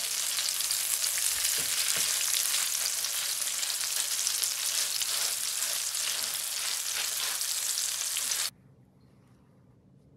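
Meat and water chestnut patties sizzling in hot oil in a nonstick frying pan, with a plastic spatula turning them. The sizzle cuts off suddenly near the end.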